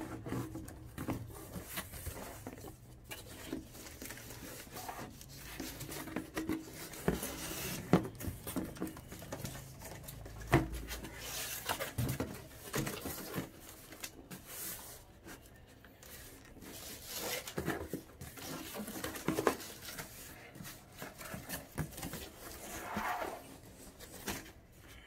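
Stiff cardboard box being handled and worked: irregular taps, knocks, scrapes and rustles, with one sharp knock about eight seconds in.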